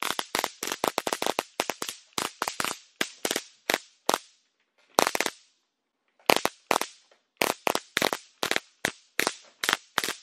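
VIPERTEK VTS-880 mini stun gun arcing across its electrodes in a rapid series of short zaps, fired in quick bursts. There is a brief pause a little before the middle and a gap of about a second just after it.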